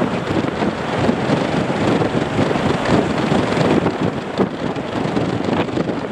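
Gusty wind buffeting the microphone, over the steady rushing of a Boeing 737-800's jet engines as the airliner rolls down the runway after landing.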